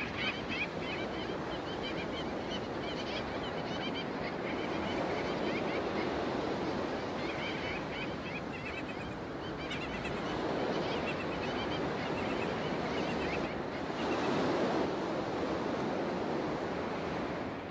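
Surf breaking on a beach: a steady rushing wash that swells every four to five seconds as the waves come in, with faint short gull calls now and then.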